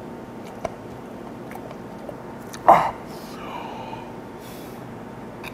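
A man's faint mouth clicks as he savours a mouthful of food, with one short, sharp breathy exhale, a falling grunt, about two and a half seconds in.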